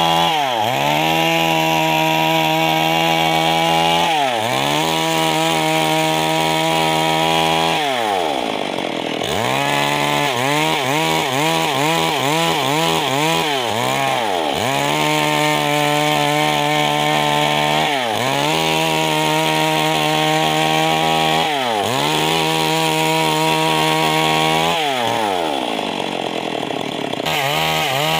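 Stihl MS 382 two-stroke chainsaw ripping a log lengthwise at full throttle. The engine's pitch sags under load and climbs back again every few seconds as the chain bites and clears.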